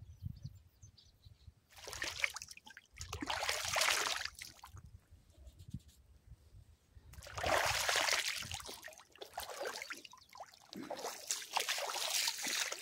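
Shallow lake water splashing and trickling in two spells, starting about two seconds in and again about seven seconds in, as a person kneeling in the water scoops it up with cupped hands.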